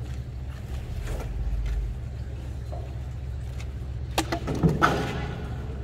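Boat engine running with a steady low hum, with a couple of sharp knocks and a short clatter a little after four seconds in.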